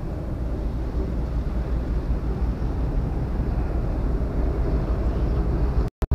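Steady low rumble of wind buffeting the microphone, cutting out for a moment near the end.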